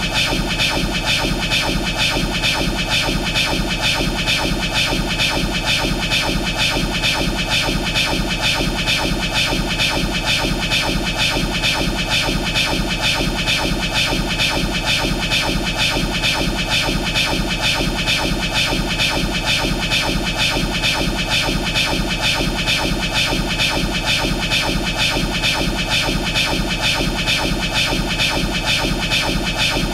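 The anime sound effect of Trafalgar Law's "Room" ability from One Piece, looped: a steady electronic hum and hiss with a rapid, even flutter that does not change.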